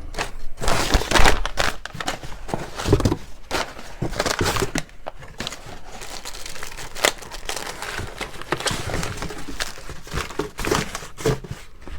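Packing material crinkling and rustling in irregular bursts as press mounts are handled and unpacked from their packaging.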